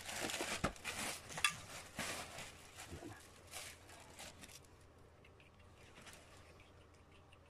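Hands working on toilet parts: rustling, scraping and sharp clicks as pieces are opened and handled. The noise dies down about four and a half seconds in, leaving faint scattered ticks.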